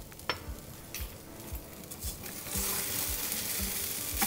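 Spiral-cut potatoes sizzling as they fry in a pan, the sizzle growing louder about two and a half seconds in as they are stirred and turned with tongs. A light click just after the start.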